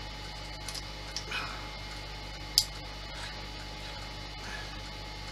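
Small clicks and taps of model parts being handled, with one sharp click about two and a half seconds in, over a steady electrical hum.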